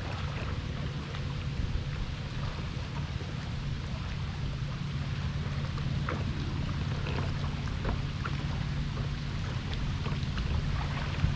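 Steady low rumble of wind and water around a fishing kayak, with scattered small clicks and taps.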